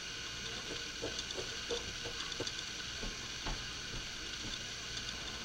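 Food frying in a pan on an electric stove: a steady sizzle with a few faint knocks.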